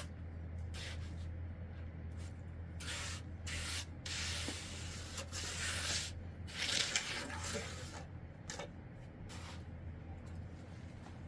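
Irregular scraping strokes on a hard surface, about eight of them, some short and some drawn out, over a steady low hum.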